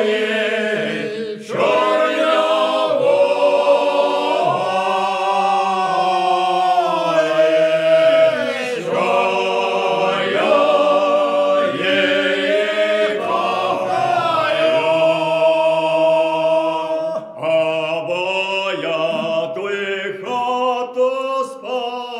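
Unaccompanied group of Ukrainian village folk singers singing a slow, drawn-out lyrical song, several voices together on long held notes.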